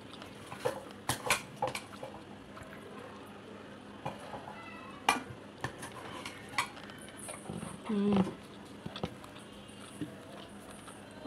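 Fingers mixing rice and fish curry on a plate, with soft scraping and several sharp clicks of the plate. A brief low hum about eight seconds in.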